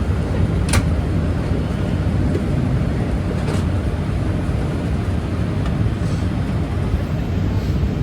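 Steady low rumble of cabin noise inside a Boeing 787-8 Dreamliner, engines and airflow heard from the passenger cabin, with a single sharp click a little under a second in.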